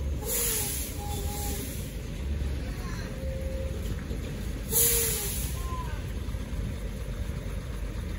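UD Trucks 330 PS heavy diesel truck running with a steady low rumble as it creeps forward, with two short hisses of its air brakes, about half a second in and again near five seconds in.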